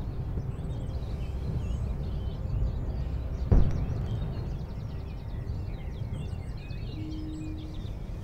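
Outdoor countryside ambience: birds chirping over a steady low rumble, with a single sharp knock about three and a half seconds in.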